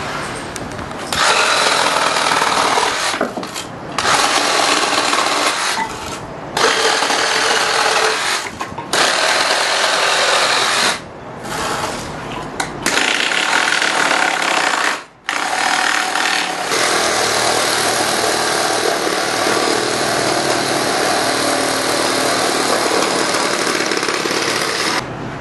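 A power tool running in stop-start bursts of one to a few seconds with brief pauses between, then one long run of about ten seconds that cuts off near the end.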